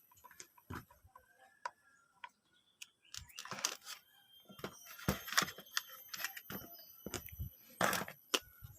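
Irregular clicks and knocks with a few short rustling bursts, handling noise rather than a running motor.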